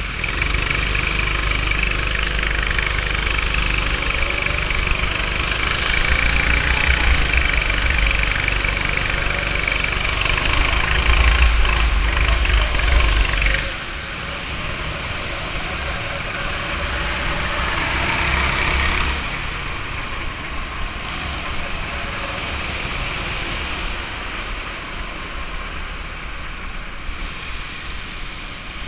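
Go-kart engine running under throttle with rumble and hiss from the onboard camera moving at speed. About halfway through the level drops suddenly and stays lower, with a brief swell a few seconds later.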